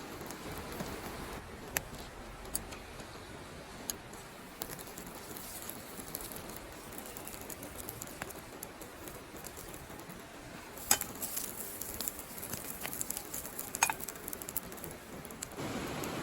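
Campfire of burning wood crackling, with scattered sharp pops that come thicker in the second half, over a steady hiss.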